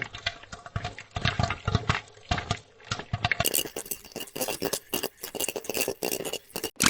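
Popcorn popping sound effect, edited: a fast irregular run of small pops. About three and a half seconds in it switches abruptly to a brighter-sounding variation, which breaks off for an instant just before the end.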